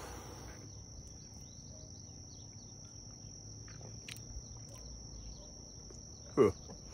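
Summer outdoor ambience: a steady high-pitched insect drone with faint bird chirps. A little before the end comes a short falling vocal groan.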